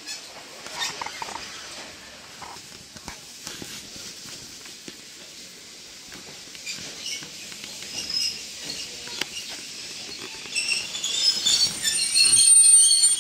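Inside a Choshi Electric Railway train car running slowly: steady rumble of the running gear with scattered clicks, then high-pitched metal-on-metal squealing from the wheels that rises to the loudest point near the end as the train threads the yard beside parked railcars.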